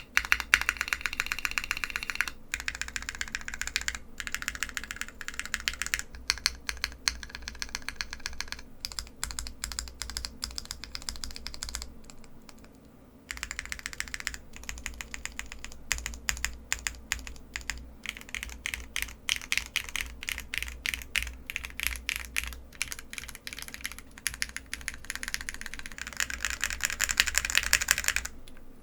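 Fast typing on a custom Mr. Suit TKL mechanical keyboard with an aluminum plate, SP-Star NaNa switches and ePBT keycaps, built with no foam dampening: a quick, steady stream of keystroke clacks. It stops for a second or so about twelve seconds in, then picks up again.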